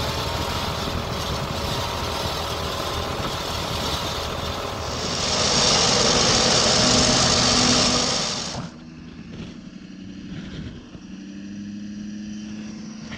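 Warn 16.5ti electric winch hauling steel cable onto its drum under load during a vehicle recovery, with truck engines running. A loud harsh hiss from about five seconds in stops abruptly a little after eight seconds, leaving a quieter, steady engine hum.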